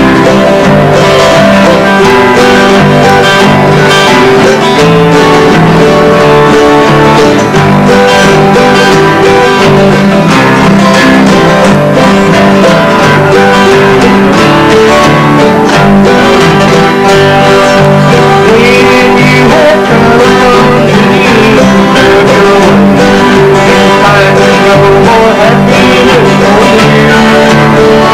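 Several acoustic guitars strummed and picked together in a steady instrumental jam, with a wavering melody line riding above the strumming in the latter part.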